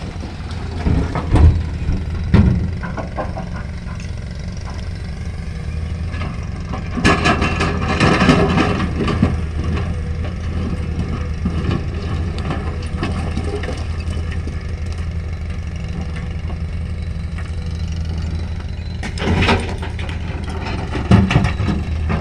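Heavy diesel engines running steadily while a Komatsu hydraulic excavator loads broken rock into a dump truck's steel body. Loads of rock crash into the truck bed several times: twice near the start, the longest and loudest about a third of the way in, and twice more near the end.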